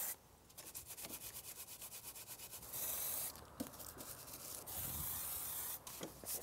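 A brush scrubbing degreaser into a motorcycle's swinging arm in rapid back-and-forth strokes. Twice it is broken by the short hiss of a trigger spray bottle.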